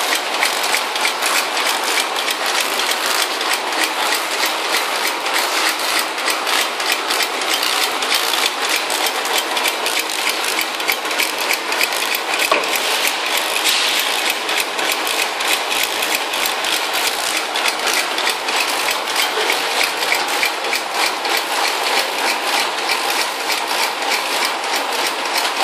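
Horizontal flow-wrap packaging machine running steadily as it wraps cookies: a continuous mechanical whir with dense, rapid clicking.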